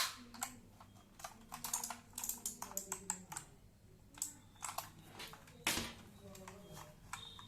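Irregular plastic clicks and clacks from a Redgear MK853 mechanical keyboard: a sharp click right at the start, then bunches of quick clicks through the middle.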